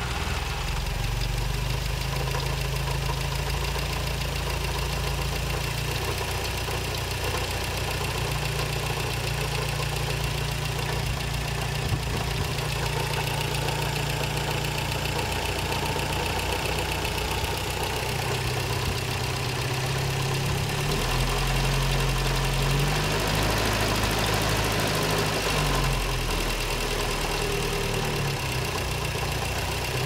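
1956 Triumph TR3's four-cylinder engine idling steadily with a knock, which the owner is puzzling over.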